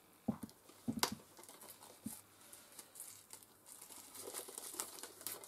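Plastic shrink wrap on a Blu-ray steelbook being picked at and crinkled by fingers. A few faint clicks come in the first two seconds, then soft crinkling builds near the end.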